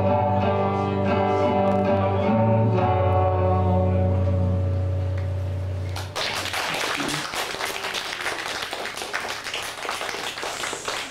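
Acoustic guitar and voice ending a song, the last chord held and ringing out, then audience applause breaking out suddenly about six seconds in.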